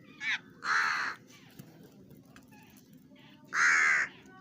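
A crow cawing twice, two harsh calls about three seconds apart, each about half a second long.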